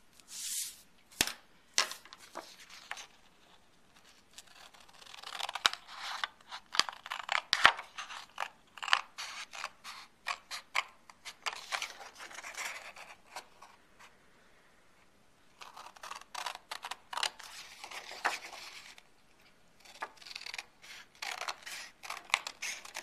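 Scissors cutting through cardstock: quick runs of crisp snips, stopping briefly a few times between runs.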